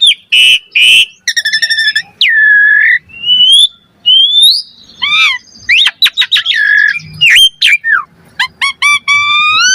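Asian pied starling (jalak suren) singing a loud, varied song of whistled glides and harsh, chattering notes. Near the end it runs into a quick series of rising notes.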